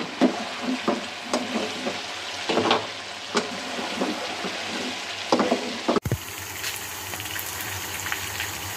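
Mutton pieces sizzling in hot ghee in a karahi, the meat being fried hard once its cooking water has cooked off. For the first six seconds a slotted spatula stirs and turns the meat with repeated sharp knocks against the pan; after that the sizzling goes on steadily with fine crackling.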